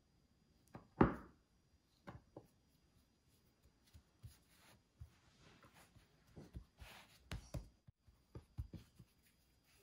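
A large kitchen knife cutting through a log of dough, its blade knocking on the countertop, the sharpest knock about a second in. Lighter taps, clicks and soft scraping follow as hands handle the floured dough.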